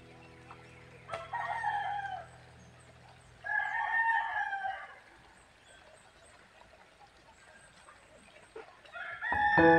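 A rooster crowing twice, each crow a little over a second long. Louder background music with piano comes in near the end.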